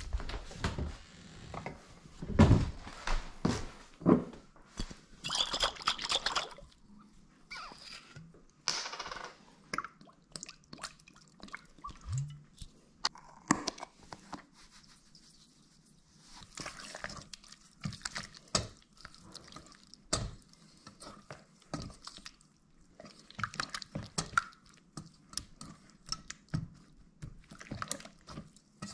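Close-up food-prep sounds: hot sauce poured from a bottle into a stainless-steel bowl of chicken pieces, and the chicken stirred in the sauce with a silicone spatula. Scattered knocks and taps against the bowl run through it.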